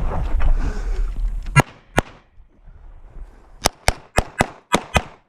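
Competition pistol firing on a USPSA stage: two shots, a pause, then three quick pairs of shots, each pair about a quarter second apart. Before the first shot there is a second and a half of low rumbling noise.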